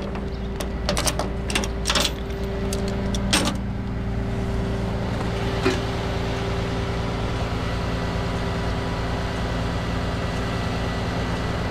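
Rollback tow truck running steadily during offloading, a constant mechanical drone. Several sharp metallic clicks and knocks come in the first few seconds, with one more about six seconds in.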